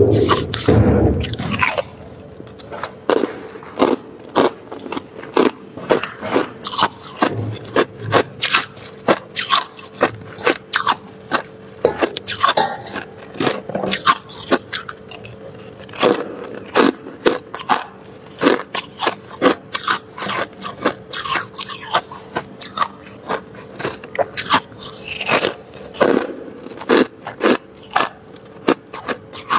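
Close-up crunching of freezer frost and ice being bitten and chewed, with frost scraped from the freezer shelves. Many short, sharp crunches come in quick, irregular succession.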